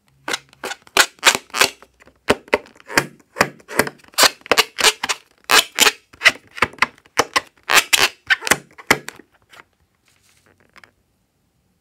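Fingers squeezing and rubbing a rubber balloon, making a rapid series of sharp rubbery clicks and squeaks, about three a second, which thin out and stop about a second before the end.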